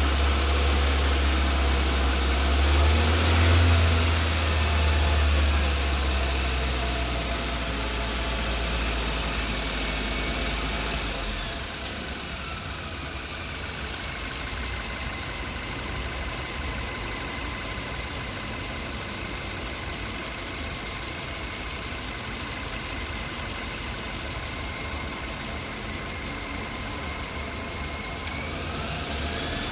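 Suzuki Jimny's 1.5-litre four-cylinder petrol engine running, freshly refilled with oil, louder for the first eleven seconds or so with a swell about three seconds in. It then settles to a quieter steady idle, a faint whine dipping in pitch as it settles and climbing again near the end.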